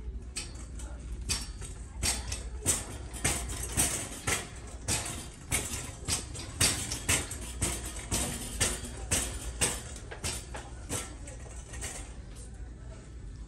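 Steady clacking at walking pace, about two a second, from walking across a hard store floor. It dies away after about eleven seconds.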